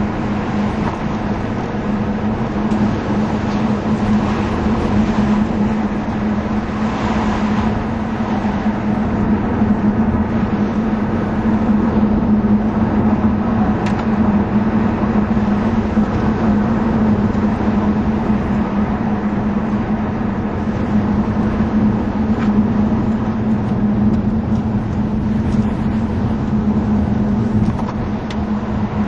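Vauxhall Monaro V8 running steadily at low road speed with tyre and road noise, heard from inside the car's cabin as a constant low drone.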